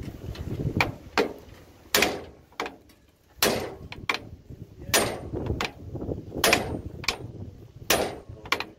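Steel hammer blows on a truck's steering arm at the ball joint of the steering linkage, with a second heavy hammer held behind it as a backing, the usual way to shock a tapered ball-joint stud loose. About a dozen sharp strikes, often in pairs of a hard blow followed by a lighter one.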